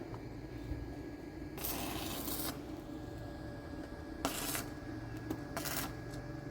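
Three short scraping strokes, the first the longest at almost a second, over a low steady hum.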